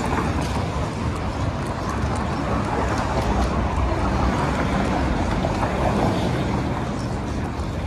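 City street traffic: cars passing on the road alongside, a steady rumble of engines and tyres.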